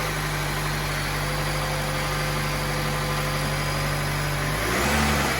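Chevy Cruze engine idling steadily, then starting to rev up near the end, heard for how its air intake sounds.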